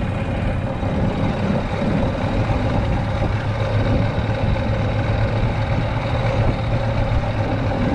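Golf cart running steadily at speed, a continuous low hum with a steady higher tone over an even rushing noise.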